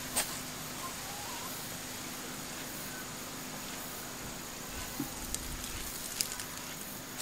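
Outdoor garden ambience: a steady hiss with a few faint short chirps and a handful of light ticks and rustles.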